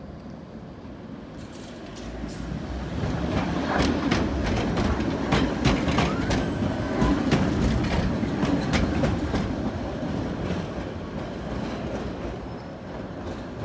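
Tram passing by, its wheels clattering over rail joints with many sharp clicks. The sound builds from about two seconds in, is loudest in the middle and fades away near the end.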